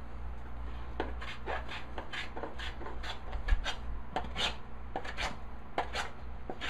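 A hand tool scraping across walnut in short repeated strokes, about two a second.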